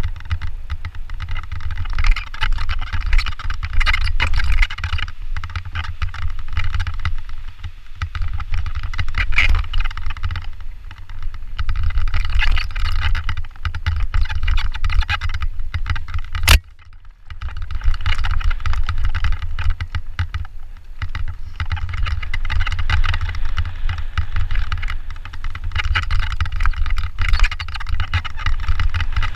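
Mountain bike riding fast down a dirt and gravel singletrack, with wind rumbling on the microphone and the tyres and bike rattling and clattering over the ground. A single sharp click comes a little past halfway.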